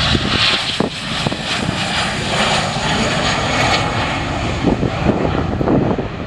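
Twin-engine jet airliner running loud, a steady deep rumble with a broad hiss, as it passes close by.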